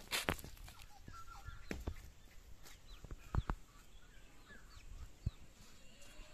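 Chickens clucking and other birds chirping in short repeated calls, with a few sharp knocks scattered through.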